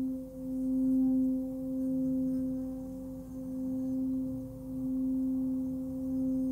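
A 16.4 cm Nepalese singing bowl tuned to about 260 Hz (C) being rubbed around its rim with a covered wooden mallet, singing one steady tone with a fainter overtone an octave above. The tone swells and dips in slow waves every second or two.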